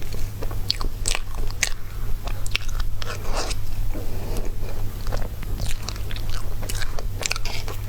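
Close-miked mouth sounds of someone eating dessert: chewing and biting with many irregular sharp wet clicks, over a steady low hum.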